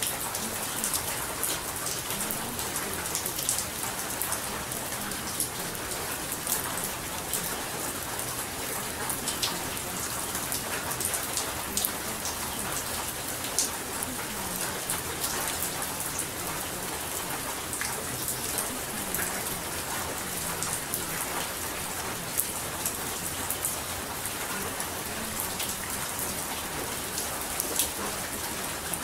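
Steady rain with many sharp drop ticks, an even noise that does not change.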